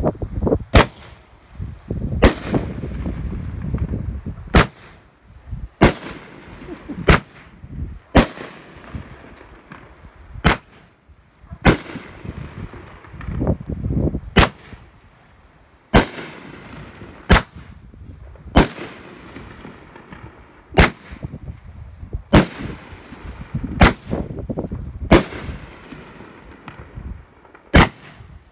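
Fireworks going off in a long, evenly paced series of sharp bangs, about one every second and a half, with a low rumble lingering between them.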